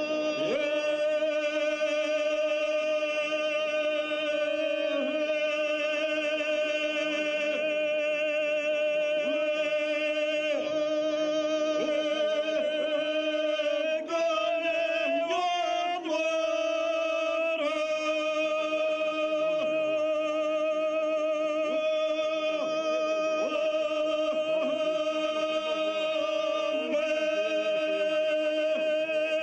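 Two men singing izvika, traditional Serbian two-part folk singing, unaccompanied: long drawn-out notes held at one pitch with a trembling voice, broken about halfway through by a few quick shakes of pitch.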